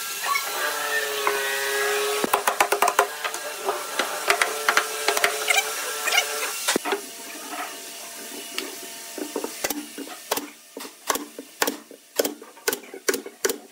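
Sharp knocks and taps on wood as frame pieces are fitted, then a pneumatic nail gun firing a quick series of separate shots into pine boards over the last few seconds.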